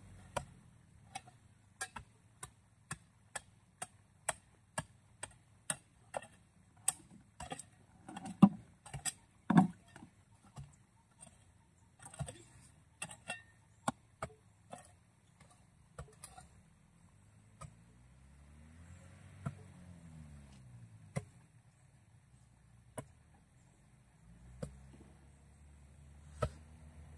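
Sharp metal taps at a small drilling rig's bore hole, from workers striking with a steel bar and hand tools: a steady run of about two taps a second for some fifteen seconds, then a few scattered ones. A vehicle engine passes about twenty seconds in and is heard again near the end.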